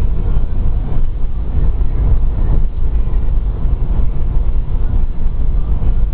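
Steady low rumble of road and engine noise inside a car cabin driving at highway speed.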